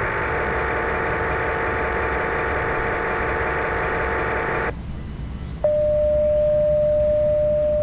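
Two-way radio receiving the emergency dispatch channel: a hiss of static that cuts off abruptly partway through. A moment later a single steady pure alert tone starts and holds: the dispatch paging tone that precedes the siren-test announcement.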